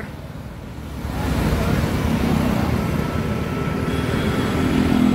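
Riding noise on a Hero Splendor single-cylinder motorcycle amid other motorcycles: a steady rumble of wind on the microphone and engine and road noise, getting louder about a second in.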